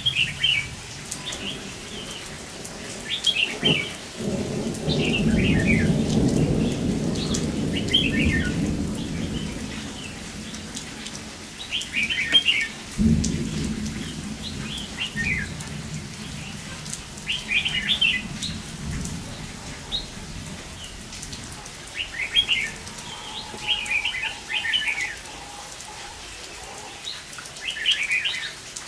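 Red-whiskered bulbuls giving short chattering territorial calls every couple of seconds, over steady rain. Two long, low rolls of thunder, the first starting about four seconds in and the second about thirteen seconds in.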